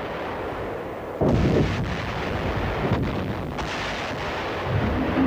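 Heavy booms with a continuous rumble between them, the biggest one about a second in.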